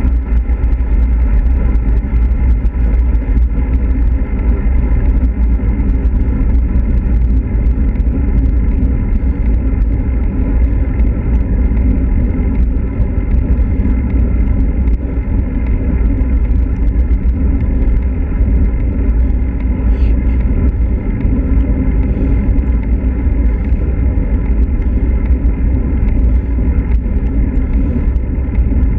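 Wind rushing over the microphone of a camera on a moving road bike: a loud, steady, deep rumble with no break.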